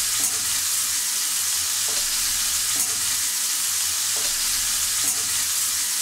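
Hot tempering oil with mustard seeds and curry leaves sizzling steadily in a frying pan around freshly added ground horse gram chutney paste; an even hiss.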